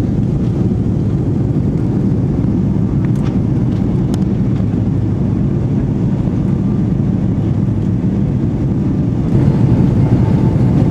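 Cabin noise inside an Airbus A330-321 in flight: the steady low rumble of its Pratt & Whitney PW4000 engines and the rushing air, heard at a window seat over the wing. It grows slightly louder near the end.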